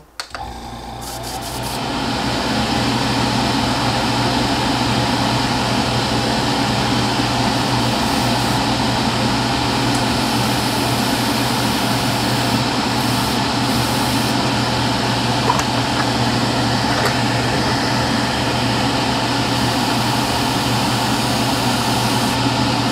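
Extractor fan switched on, spinning up over the first couple of seconds and then running steadily with a low hum.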